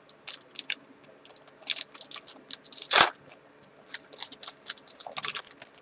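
Foil trading-card booster pack being torn open by hand: crinkling and crackling of the wrapper, with one louder rip about halfway through.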